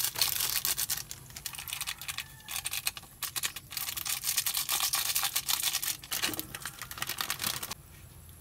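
Dense, rapid crackling and clicking from a pan of water heating over an open wood cooking fire. It comes in stretches and drops away abruptly near the end.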